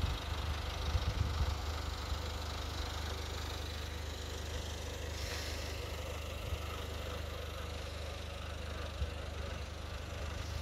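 Steady low rumble of an engine running, with a light even hiss over it.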